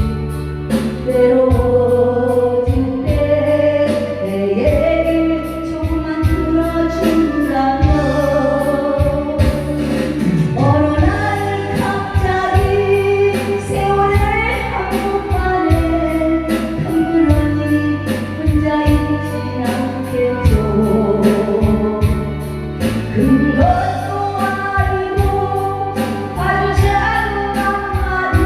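Music with singing over a steady beat and bass line.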